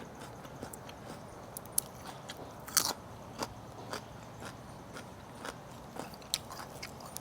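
A person chewing food close to the microphone, with irregular wet mouth clicks and smacks. The sharpest clicks come about two and three seconds in and again near the end.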